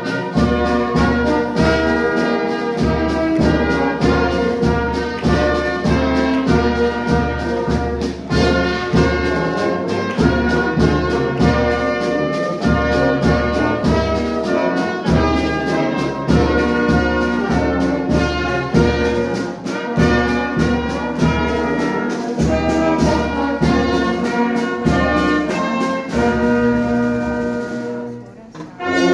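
Brass band playing, with trumpet and trombone tones over a steady low beat. The music drops away briefly near the end.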